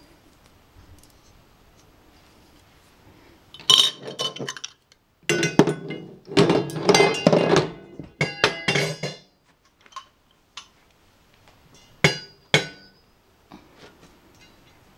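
Metal cart tubes clinking and knocking against each other and the table as the frame and poles are handled and fitted together. A burst of clatter about four seconds in, a longer run of clattering with some ringing in the middle, then two sharp knocks about twelve seconds in.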